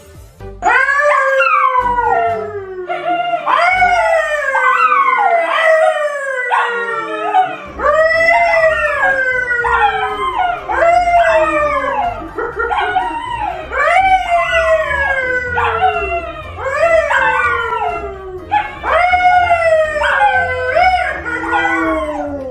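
A dog howling over and over, each call rising and then sliding down in pitch, about one every one to two seconds.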